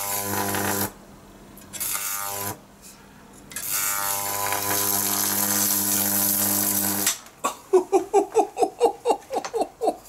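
Jacob's ladder driven by a microwave-oven transformer, its high-voltage arc between two upright wires giving a loud mains buzz with a hissing crackle, in three runs: under a second, a brief one, then about three and a half seconds. After that, a man laughing in quick, regular bursts.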